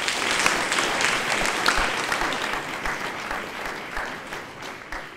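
Audience applauding: a dense patter of clapping that slowly thins and dies away.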